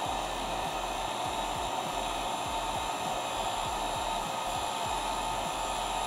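Wagner heat gun running steadily on its low setting: a constant rush of blown air with a faint steady whine, heating PETG tubing to soften it for bending.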